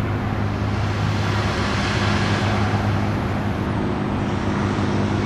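CNC toolroom mill running: a steady motor hum with a hiss that swells and fades again about two to three seconds in.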